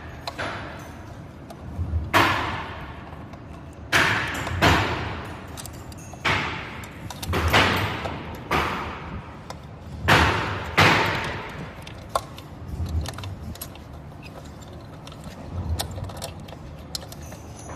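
Irregular knocks and clicks of parts and tools being handled during a battery and controller replacement, each knock trailing off briefly.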